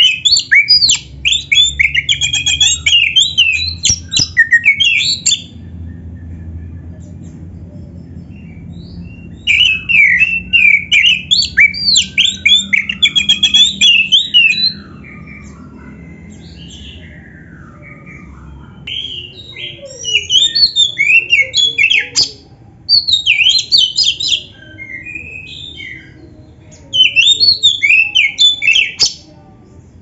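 Oriental magpie-robin (kacer), black-chested form, singing loud, rapid, varied song in about five bursts of a few seconds each, with short pauses between them.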